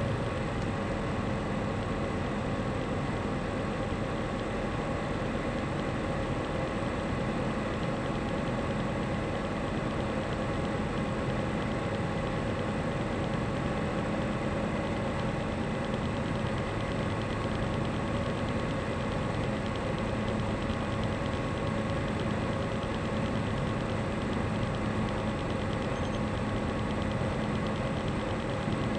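Tecnam P2002 Sierra's Rotax 912 flat-four engine and propeller running steadily in flight, a constant drone with a steady hum over rushing noise.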